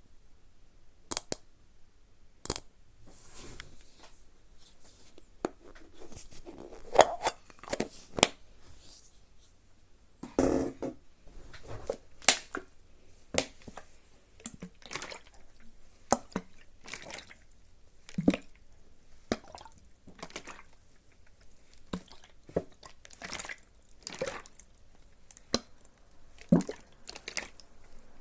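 Close-miked ASMR trigger sounds: soft, wet-sounding clicks and taps coming irregularly, a few a second, with some a little louder than the rest.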